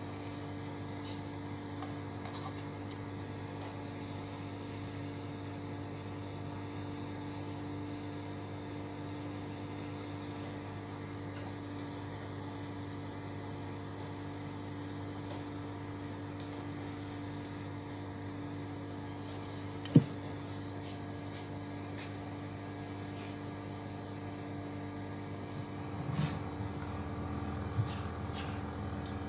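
Steady mains hum from a powered switching power supply and its cooling fan, with a single sharp click about twenty seconds in and a few light knocks of handled equipment near the end.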